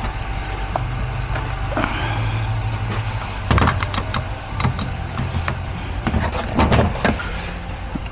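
Metal transmission parts clinking and knocking as they are handled and set down during an 8L90 teardown, over a steady low hum. The sharpest knocks come about three and a half seconds in and again near seven seconds.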